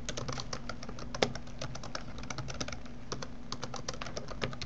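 Typing on a computer keyboard: a quick, uneven run of key clicks, with one key struck harder a little after the first second and a short pause about three seconds in.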